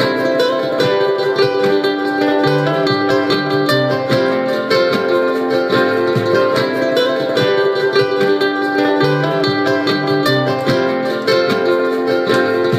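Solo acoustic guitar playing an instrumental passage, chords and picked notes ringing in a steady rhythm.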